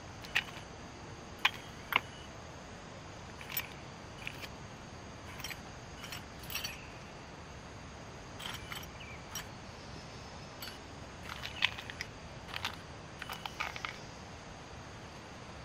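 Scattered light clicks and clinks of small metal leatherworking tools, such as stitching chisels, being set down and handled among pieces of leather, at irregular intervals with a few sharper knocks.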